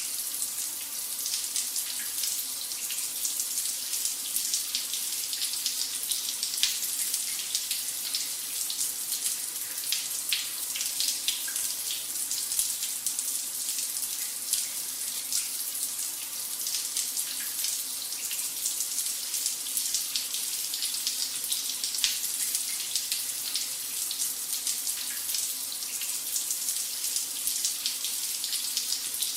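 Shower running steadily: a constant hiss of water spray with fine spattering droplets.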